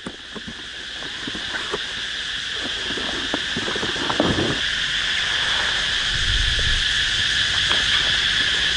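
Steady insect drone, growing louder, with plastic wrapping rustling and a few light clicks as an earth-auger bit is unwrapped and handled.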